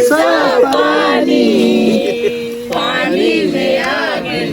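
Several voices singing a Nepali folk song together, with overlapping held and gliding notes.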